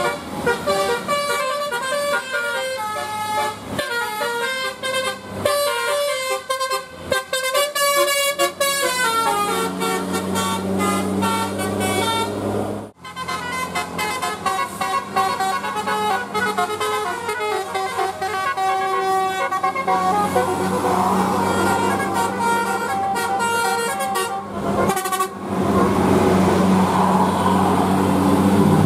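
Indonesian bus 'telolet' multi-tone air horn playing quick melodies of stepped notes, over and over in several runs. In the last few seconds the horn stops and a bus engine's rumble grows louder.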